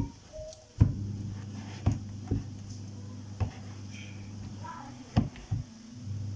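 A spatula knocking irregularly against the plastic rice maker bowl while thick banku dough is stirred and turned, about seven sharp knocks in all. A low steady hum runs underneath.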